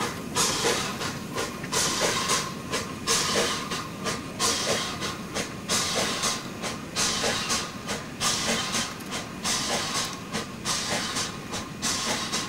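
Narrow-gauge steam locomotive working a train, its exhaust beating about twice a second over a steady hiss of steam.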